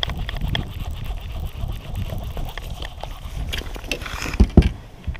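Wind buffeting the microphone on an open boat, with handling and movement noise from someone shifting about in the boat. About four and a half seconds in come two loud thumps close together.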